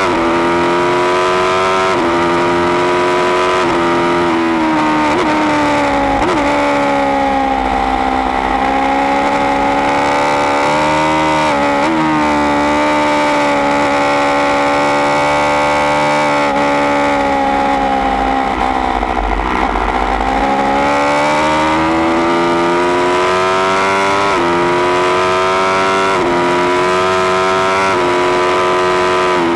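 2016 Aprilia Tuono V4 1100 Factory's V4 engine at full track pace, heard from on board, breathing through a baffled Austin Racing GP1R slip-on can. The engine note rises and falls with the throttle, with short breaks at gear changes and two stretches where it drops lower while slowing for corners.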